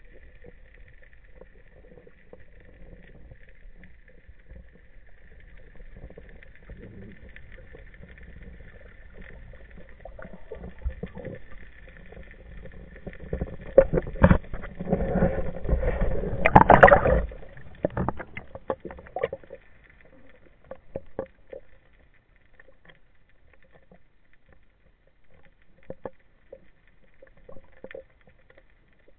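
Muffled underwater sound picked up by a camera on a speargun: a low water rumble with scattered clicks. About halfway through comes a louder stretch of rumbling and crackling lasting a few seconds.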